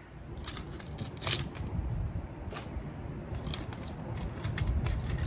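Copper magnet wire being pulled out of a refrigerator compressor's motor stator: scattered small clicks and crackles of the wire, with a quick cluster near the end.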